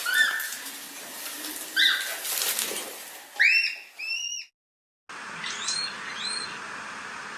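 Himalayan red panda giving a series of short, high-pitched squeaky chirps. The sound cuts out completely for about half a second past the middle, then fainter chirps follow over a steady hiss.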